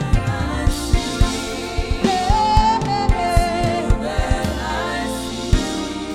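Live gospel worship music: a wordless sung melody that glides up and down over a band's sustained chords, with drum hits at a steady beat.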